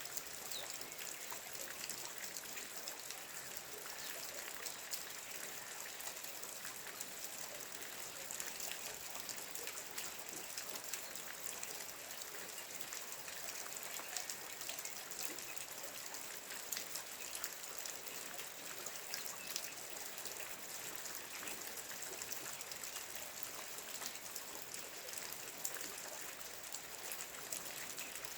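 Steady rain falling, an even hiss dotted with many small drops ticking and pattering.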